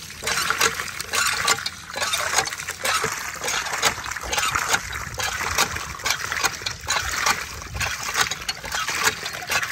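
Water splashing and sloshing in uneven surges, about once or twice a second.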